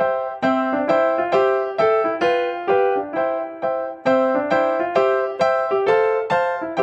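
Background music: a keyboard melody of evenly paced struck notes, each note fading before the next.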